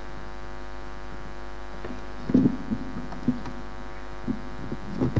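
Steady electrical mains hum through a public-address sound system, with a few short knocks partway through and near the end.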